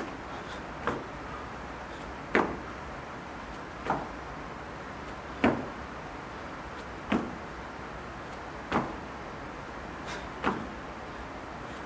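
Sneakers landing on a rubber gym floor from repeated squat jumps ("180s" jump turns): a short thump about every second and a half, about seven in all.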